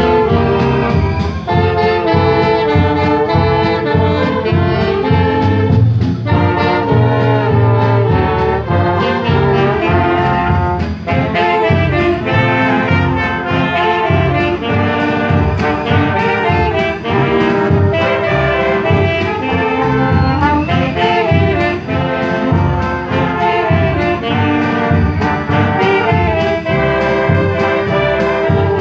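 Wind band playing a Christmas medley, led by trombones with saxophones, tuba and other brass and woodwinds, the music going on without a break.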